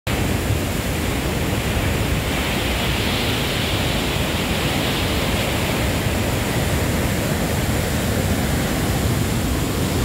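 River in spate rushing over rapids and through a narrow rock canyon: a loud, steady rush of whitewater.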